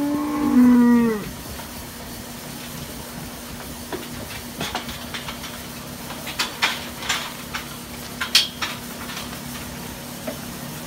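One drawn-out moo from cattle, about a second long, rising then falling, at the start. Under it runs the steady hum of the electric fan over the steel squeeze chute, and in the middle there is a scattered run of metal clanks and rattles from the chute.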